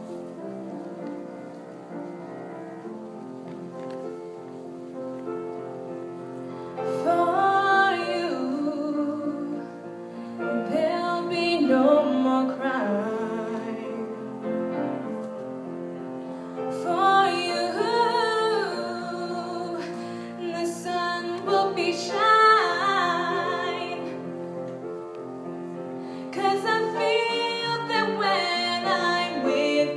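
A woman singing a slow song with piano accompaniment; the piano plays alone for about the first seven seconds before the voice comes in, and she sings in phrases with long, wavering held notes.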